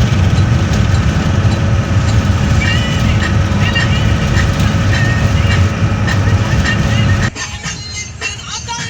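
A loud, steady low rumble of a vehicle in motion, with faint pitched sounds over it. The rumble cuts off suddenly about seven seconds in, leaving quieter music.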